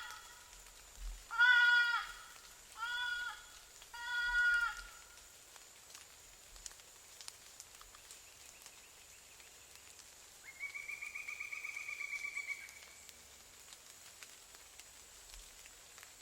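Fawn distress bleats from an ICOtec GC500 electronic predator caller: four loud, wavering bleats in the first five seconds. After a pause comes a higher, quavering cry about two seconds long.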